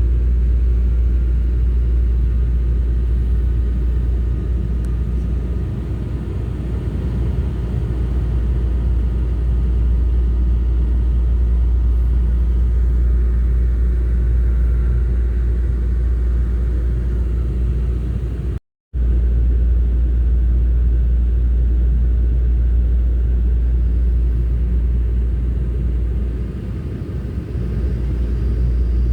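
Steady low rumble of a train in motion, heard from inside the carriage, with a faint steady whine above it. The sound cuts out completely for a split second a little past the middle.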